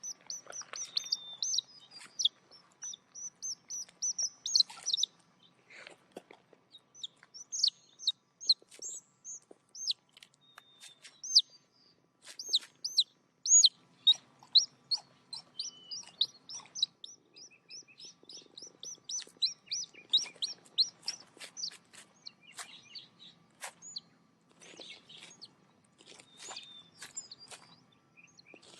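Live chicks peeping over and over, a stream of short, high, downward-sliding peeps with brief pauses.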